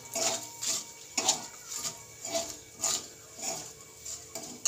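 Flat spatula scraping and stirring around a metal kadai, about two strokes a second, turning whole spices in a little hot mustard oil.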